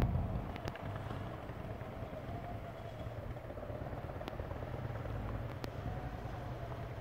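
Harley-Davidson Electra Glide Ultra Limited trike's V-twin engine running steadily at low speed, a low even drone, with a few light ticks.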